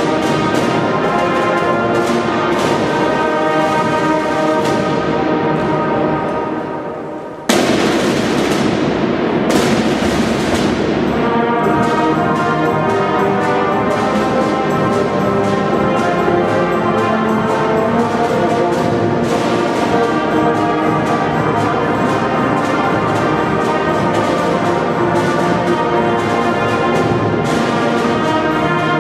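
A marching band playing brass instruments with drums. About six seconds in the music fades, then jumps abruptly back to full volume on another passage.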